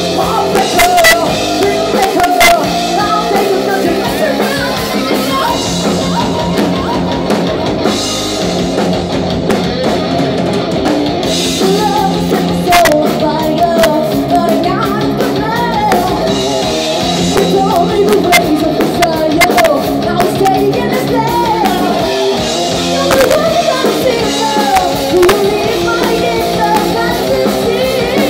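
Live rock band playing: a woman singing lead over distorted electric guitars and a drum kit with crashing cymbals.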